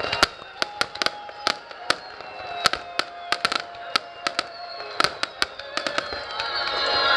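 Fireworks display: many sharp, irregular bangs and cracks, some in quick clusters, over several whistling tones that glide slowly downward, growing louder near the end.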